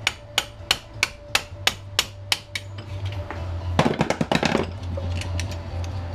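A hand used as a hammer strikes a metal doorknob part, giving about nine sharp taps at roughly three a second, followed by a short burst of metallic clatter about four seconds in.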